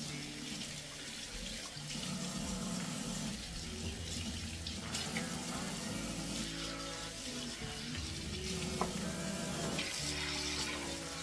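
Kitchen faucet running, its stream splashing over raw chicken pieces held under it and falling into a bowl in the sink.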